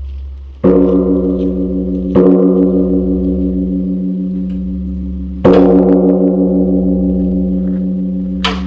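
Large bronze temple gong struck three times, each stroke ringing on with a wavering, beating tone that slowly fades. A steady low hum runs underneath, and a short sharp knock comes near the end.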